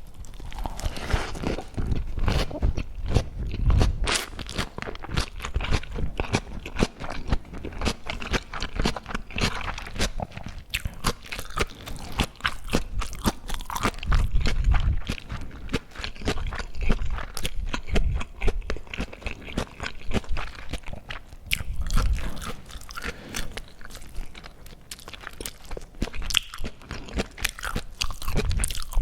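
Close-miked eating: steady crunchy chewing and biting of food, with dense crackling clicks throughout and a few heavier bites near 4, 15 and 22 seconds in.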